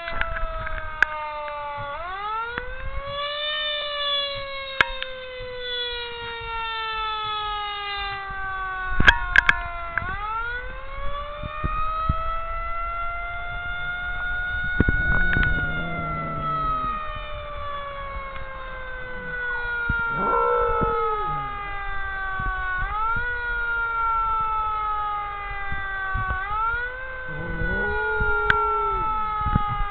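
A siren wails in repeated cycles, each rising quickly and then falling slowly. A dog howls along with it in short wavering howls, three times: about halfway in, a few seconds later, and near the end.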